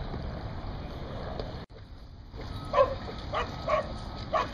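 A dog barking four times in quick succession in the second half, short sharp barks about half a second apart.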